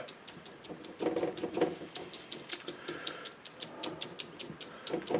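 Splayed hake brush dabbed repeatedly on watercolour paper: a quick run of light taps, about five a second.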